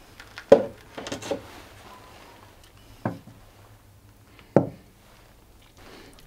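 A few separate knocks and clatters of objects being handled and set down in a small room. The loudest comes about half a second in, a small cluster follows about a second in, and two more single knocks land around three and four and a half seconds in.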